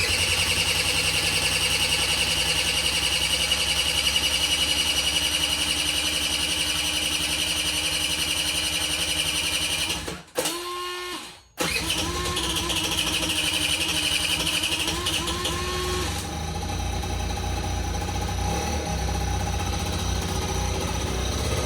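Buddy 50 scooter's electric starter cranking its 49cc four-stroke engine for about ten seconds, stopping briefly, then cranking again until the engine catches and settles into a steady idle for the last few seconds. This is the engine starting after its carburetor has been cleaned and reinstalled.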